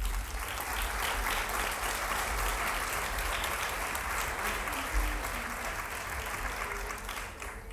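Audience applauding steadily; the applause dies away near the end.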